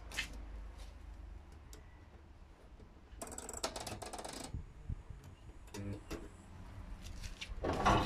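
Whirlpool FL 5065 front-loading washing machine being started: a click as its power button is pressed, a burst of clicking about three seconds in, and near the end its motor starts turning the drum, growing louder.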